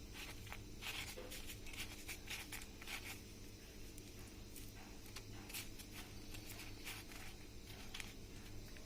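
Faint, scratchy rustling and crunching of marinated chicken pieces being pressed into a dry coating of crushed wheat flakes and flour, over a steady low hum.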